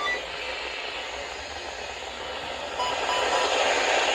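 Static hiss from a NOAA weather radio receiver after its alert has gone off. It steps up louder about three seconds in, with a short beep.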